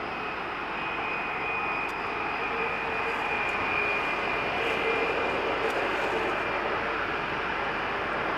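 Air France Airbus A320's CFM56 turbofan engines at taxi power: a steady jet hum with a high whine, growing slightly louder.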